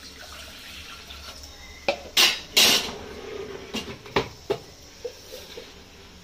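Water poured from a jug into a small stainless steel pot, then the pot clanks: two loud sharp knocks about two seconds in, followed by a few lighter knocks as the pot is handled and set onto a glass induction cooktop.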